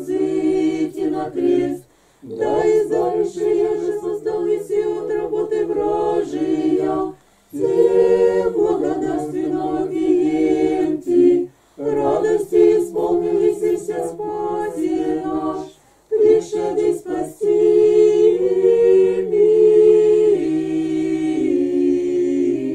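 Small group of men and women singing an Orthodox Church Slavonic hymn together, unaccompanied, in long held phrases broken by four brief pauses for breath.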